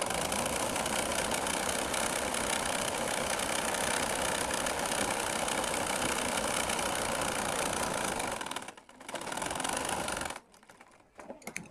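Singer sewing machine running steadily, stitching the folded end of a skirt's waistband fabric, for about eight seconds; it pauses, runs again briefly for about a second, then stops, followed by a few light clicks.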